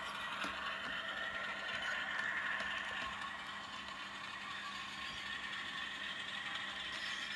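Model container wagons rolling along the layout's track: a steady rattling running noise with a few faint clicks.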